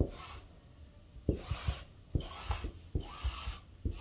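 A marking tool drawn across fabric on a table, making several short scratching strokes as a curved cutting line is marked out, with a few soft knocks of hands on the cloth.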